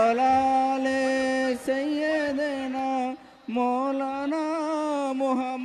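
A man's voice singing a naat unaccompanied, holding long notes that waver and ornament in pitch, with a short break for breath about three seconds in.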